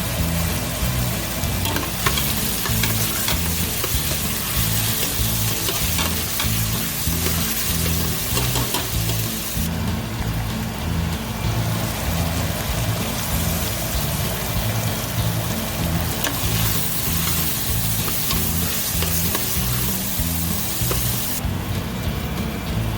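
Food sizzling as it fries in hot oil in a pan, with a utensil stirring it and clicking against the pan now and then. Background music with a repeating bassline plays underneath.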